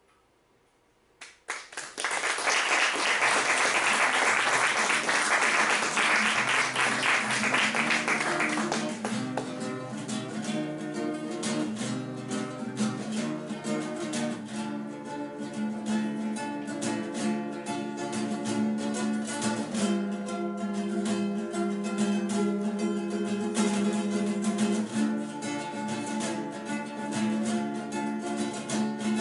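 Solo classical nylon-string guitar. About two seconds in it comes in with loud, fast strumming, then after several seconds settles into softer picked notes and chords.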